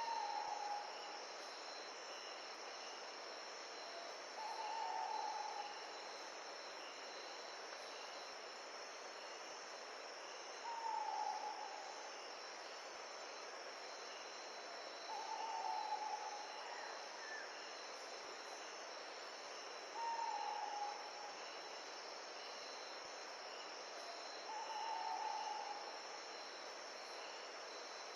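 A bird's short, slightly falling call, about a second long, repeating every four to five seconds over a steady chirring of insects and an even hiss.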